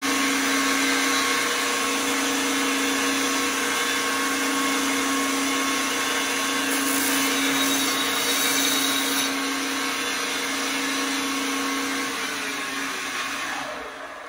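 Drum-type wood chipper running at a steady speed with a constant whine; near the end the pitch falls and the sound dies away as the machine spins down.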